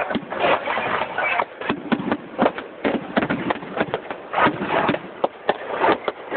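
Fireworks going off: an irregular rapid series of bangs and crackles, several a second, over a continuous rumbling haze.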